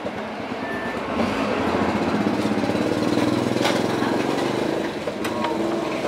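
Motorcycle engine idling steadily, with a couple of light clicks about halfway through and near the end.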